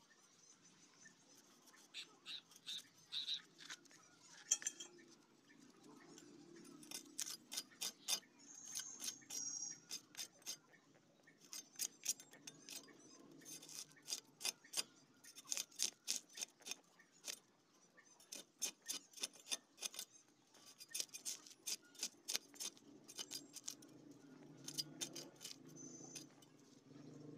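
A whole fish being scaled against the blade of a boti, a curved knife set upright on a wooden base: quick runs of sharp scraping clicks as the scales are rasped off, several strokes at a time with short pauses between.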